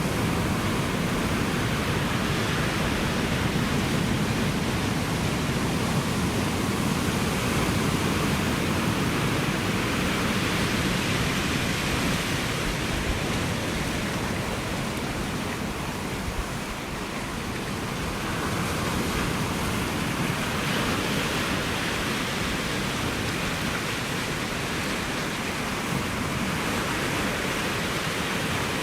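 Ocean surf washing ashore in a steady, continuous hiss, swelling and easing slowly, with a brief lull about halfway through.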